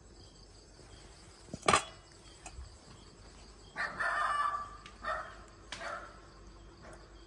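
A metal food bowl set down on a concrete step with one sharp clank, followed a couple of seconds later by several short calls from chickens.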